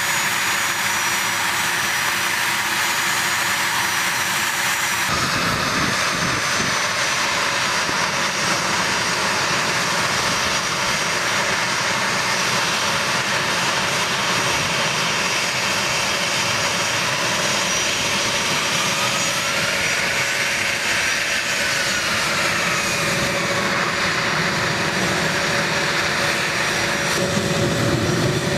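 The twin General Electric TF34 turbofan engines of an A-10 Thunderbolt II running on the ground: a steady jet rush with a high turbine whine. About two-thirds of the way through, a whining tone rises and then falls as the jet taxis.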